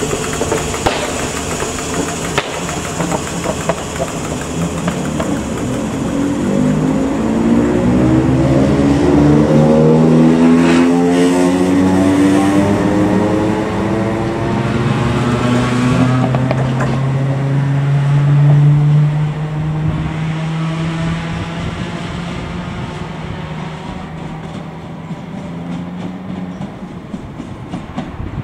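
ScotRail Class 318 electric multiple unit pulling away from a platform. A steady hum while it stands gives way, about six seconds in, to a whine of several tones rising in pitch as the traction motors accelerate it. The whine is loudest past the middle, then fades as the train leaves.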